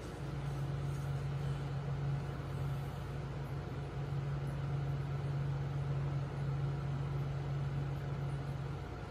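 Steady low hum of an aquarium pump running, with a faint even hiss over it.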